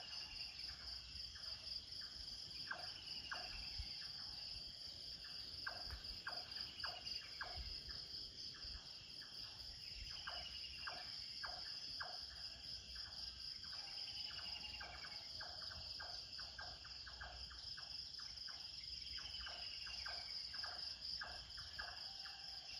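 Morning nature ambience: insects, crickets among them, trill steadily and high-pitched. Over the trill come many short sharp bird chirps at irregular spacing and, every few seconds, a higher call that falls in pitch.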